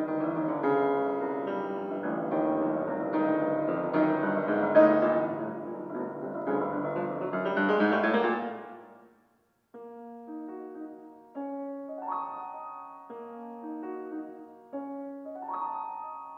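Steinway concert grand piano playing solo classical music: a dense, loud rippling passage that sweeps upward, breaks off about nine seconds in, then gives way to sparse, quieter chords left ringing.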